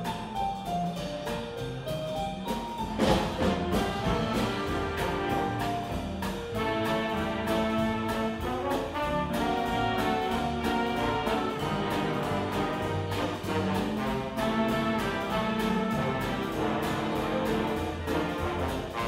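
Live big band playing: saxophones, trumpets and trombones over drums and bass, with a loud hit of the whole band about three seconds in, after which the full brass section plays on.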